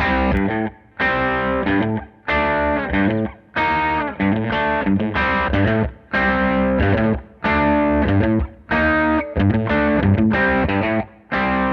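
Fender solid-body electric guitar on its bridge pickup, played through an amplifier: a chordal riff in short phrases, each stopping abruptly before the next.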